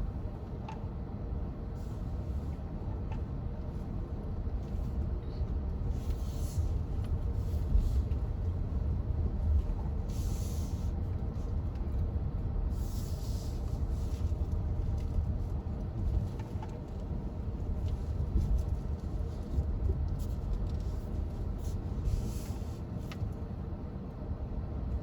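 MG HS SUV driving slowly over rough off-road ground: a steady low rumble, with short hissing noises a few times.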